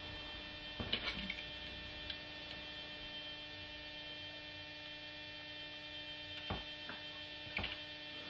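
Steady electrical mains hum, with a few faint taps and clicks about a second in and again near the end as tabbing wire is handled on the work board.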